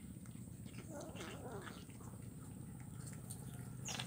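A calico kitten chewing fish bones, making small, irregular wet crunches and clicks, with a short wavering call about a second in and a steady low hum underneath.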